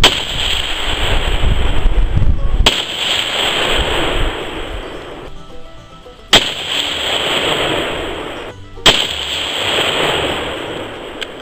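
Four shots from a scoped .22-250 rifle, a few seconds apart, each followed by a long echo trailing off.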